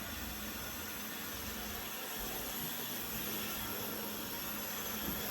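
Steady low hiss of background noise, with no distinct knocks or other events.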